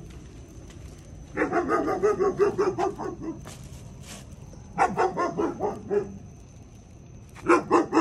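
Dogs barking in three bouts of quick repeated barks, about four or five barks a second: one starting about a second in, a shorter one in the middle, and another near the end.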